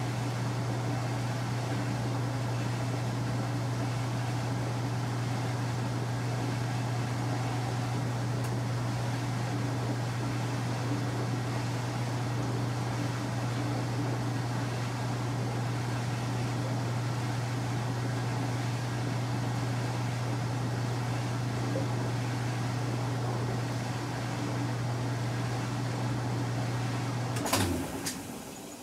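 Motor of a Kenmore 800 Series top-load washing machine running with a steady hum. Near the end it shuts off abruptly with a clunk and a click.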